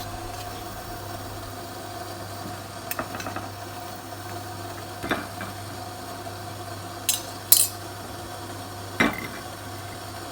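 Metal utensil clinking against cookware about five times, with the sharpest pair of knocks a little past the middle, over a steady low hum.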